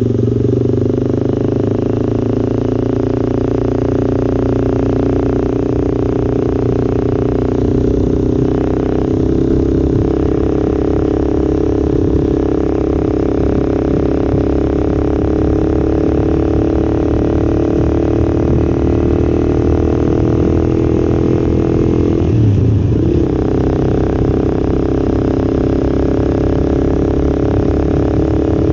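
Honda CBR250R's single-cylinder four-stroke engine running while the motorcycle is ridden, its pitch climbing slowly and steadily, with a brief break in the pitch about three-quarters of the way in.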